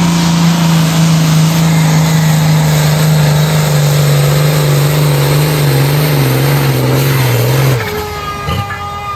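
Turbocharged diesel engine of a Pro Stock pulling tractor running flat out under load as it drags the weight sled, its pitch slowly falling as the sled bogs it down. The engine sound cuts off abruptly near the end as the tractor reaches a full pull and comes off the throttle.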